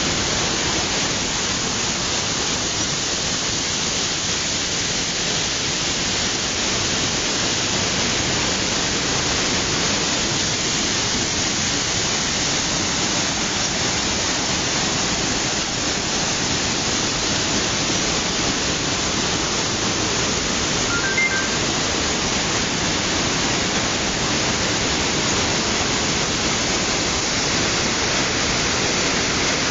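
Waterfall with a steady, unbroken rush of falling water that fills the whole sound, even in level throughout.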